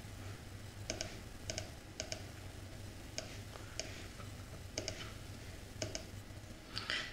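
Scattered clicks of a computer mouse, several in quick pairs, over a faint steady low hum.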